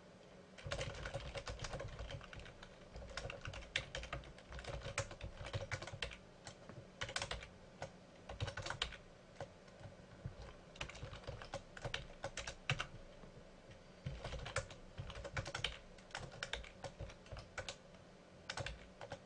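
Typing on a computer keyboard: irregular runs of quick keystrokes, broken by short pauses.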